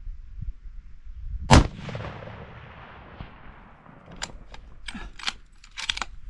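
A single scoped hunting rifle shot about a second and a half in, its report echoing and fading away over the next couple of seconds. Near the end come several quick metallic clicks as the bolt is worked to chamber another round.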